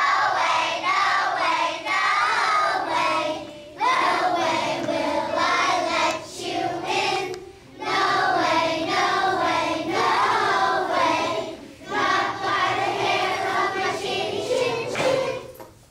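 A group of young children singing a song together, in phrases of about four seconds with short breaths between them.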